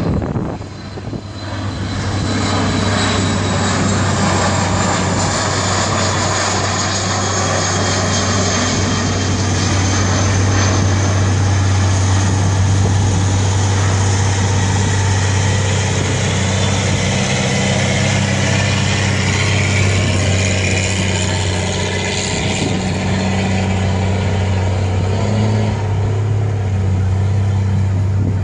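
Four-engine BAe 146 jet on final approach, its turbofans whining loudly, with high fan tones that slowly fall in pitch over a steady low drone.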